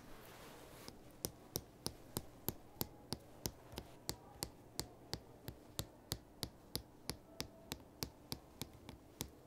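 Fingernail tapping on the gold metal waist button of navy corduroy trousers: a steady run of sharp clicks, about three a second, starting about a second in.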